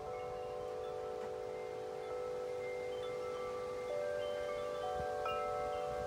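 Wind chime ringing in the wind: several long, overlapping tones that keep sounding, with new strikes about a second in and again around four and five seconds in. A low wind rumble runs underneath.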